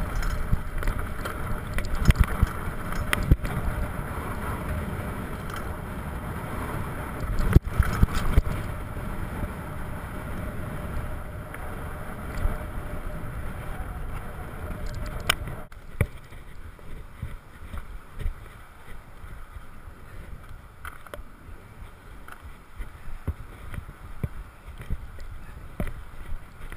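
Wind rushing over the microphone and the rumble and rattle of a mountain bike riding fast over a rough dirt track, with sharp knocks from bumps. About 15 seconds in, the sound drops suddenly to a quieter, patchier hiss with scattered knocks.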